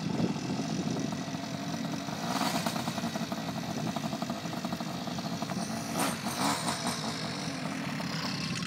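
Motorcycle engine running steadily, with two louder spells of fast ticking revs about two and a half seconds and six seconds in.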